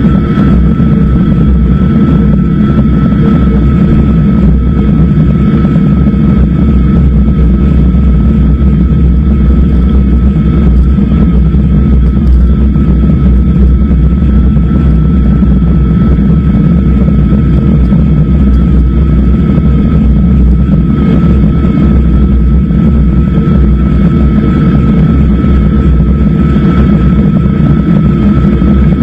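Loud, steady rumble of wind buffeting and road noise on an action camera riding on a moving e-bike, with a thin steady high tone over it.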